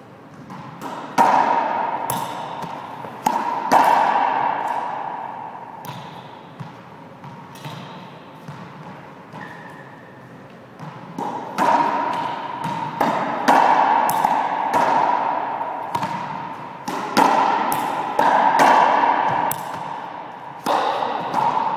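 A racquetball being hit by racquets and smacking off the court walls and floor, each hit ringing with a long echo in the enclosed court. A fast run of hits about a second in, a sparser stretch in the middle, then a dense rally again from about 11 seconds.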